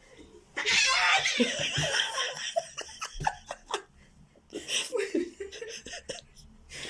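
A person laughing, breaking out about half a second in and going on in irregular bursts.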